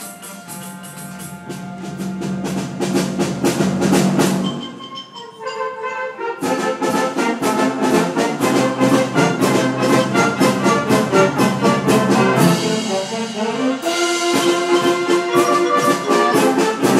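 High school concert band playing: French horns, clarinets, saxophones and trombones over a steady drum beat. The music swells for the first four seconds, drops back briefly, then comes in loudly again at about six and a half seconds and stays loud.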